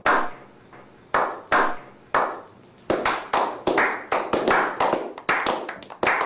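A slow clap by a small group of men: one person claps a few times, slowly and unevenly, then from about three seconds in others join and the claps come quicker and overlap.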